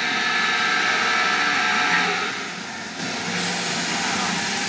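CNC machine tool running: a loud, steady whir and hiss with high whining tones. It eases off about two seconds in, then picks back up with a high whine.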